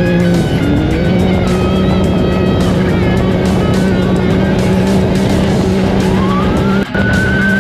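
Off-road race vehicle's engine running at a steady pitch, dipping briefly about half a second in, with music playing over it.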